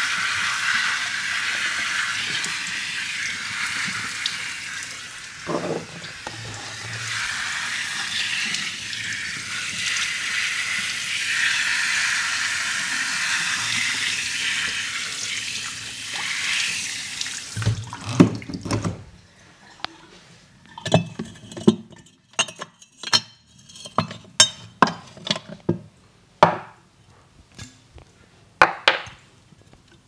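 Water running steadily from a tap into a sink during a hair wash, shutting off about 17 seconds in. After it, a run of scattered sharp clicks and light knocks.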